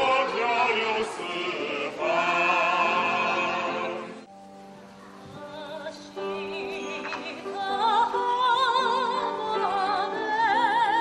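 Operatic singing with wide vibrato over accompaniment. It breaks off suddenly about four seconds in, the music resumes quietly, and a high soprano voice with wide vibrato comes in strongly near the end.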